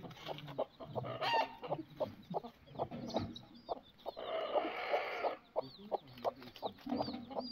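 A hen clucking in short, quick, repeated clucks, with high thin chirps repeating over the last couple of seconds.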